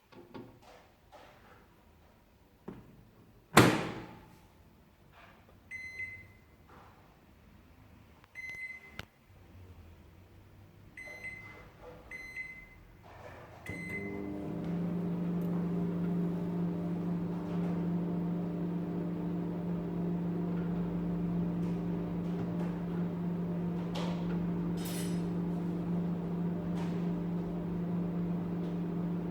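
A sharp knock, then five short beeps from the keypad of a Recco 1200 W microwave oven, spaced one to two and a half seconds apart. About fourteen seconds in, the oven starts running with a steady hum, heating a cup of water.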